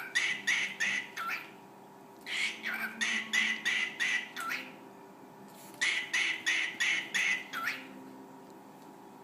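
A cockatiel calling in three runs of short, rapid, harsh notes, about three or four a second, each run ending in a note that drops in pitch.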